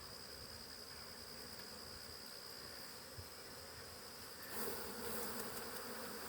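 Swarm of honey bees buzzing around an open hive, the buzz swelling clearly louder about four and a half seconds in.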